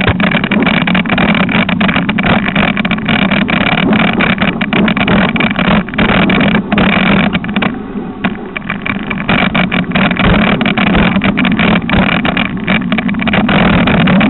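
Mountain bike ridden over a dirt forest singletrack, heard from a camera mounted on the rider or bike: a loud, continuous rattling and rumbling of tyres and frame jolting over the ground, with a steady low hum underneath. It eases briefly about eight seconds in.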